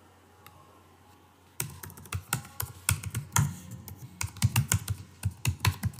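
Typing on a computer keyboard: a quick run of key presses that starts about a second and a half in and lasts about four seconds.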